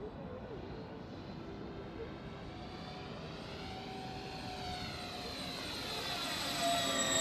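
Electric motors and propellers of a four-engine Flightline RC B-24 Liberator scale model in flight: a steady propeller drone that grows louder as the plane comes closer. Near the end its pitch dips and then rises again.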